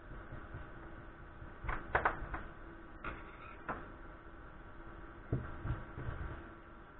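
Small tools and a phone's plastic frame being handled on a wooden tabletop: a few light clicks and taps, then a few dull knocks later on.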